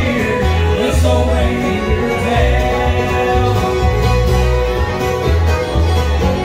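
Live bluegrass band playing: a bowed fiddle over strummed and picked guitars, banjo and a pulsing upright bass line.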